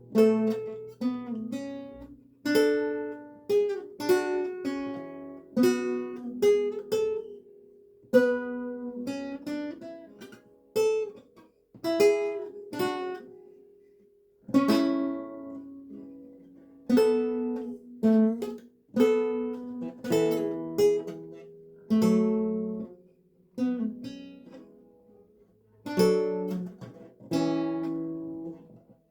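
Renaissance lute played solo: plucked chords and single notes in unhurried phrases, each note ringing out and fading, with short breaks between phrases.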